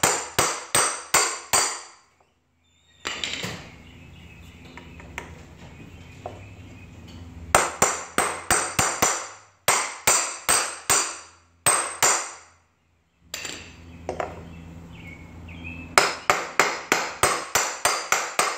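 Claw hammer tapping on a steel socket held against a new wheel bearing, driving the bearing into a motorcycle wheel hub. The strikes come in runs of quick metallic blows, each ringing briefly, with pauses between runs; the last run is faster. This is the bearing being seated in the hub bore.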